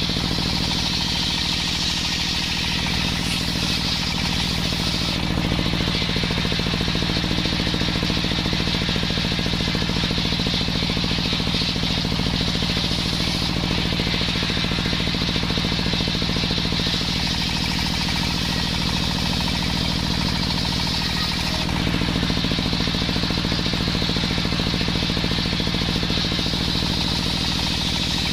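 Homemade engine-driven circular saw running steadily while ripping waru wood: a constant engine drone under a high, rasping whine from the blade in the wood. The whine changes in tone a couple of times as the cut goes on.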